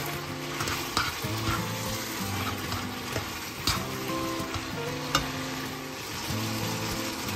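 Linguine sizzling in oil in a nonstick frying pan as it is tossed and stirred with metal tongs, with a few sharp clicks of the tongs against the pan.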